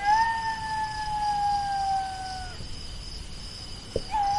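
Jackal howling: one long wail that falls slightly in pitch over about two and a half seconds, then a second wail starts near the end. A steady insect chirping runs underneath.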